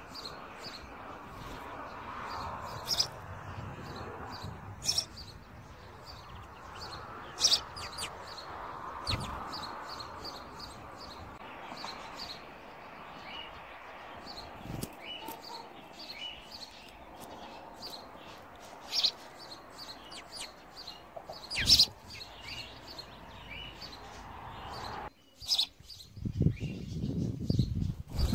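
House sparrows chirping: many short, high chirps scattered throughout, a few of them loud and close, over a steady background hum. Near the end the hum cuts out and a low rumbling noise comes in.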